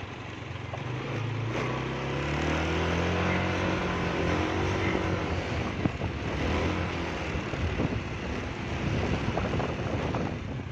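Motor scooter engine running while being ridden, rising in pitch about two seconds in as it speeds up, with wind noise on the microphone.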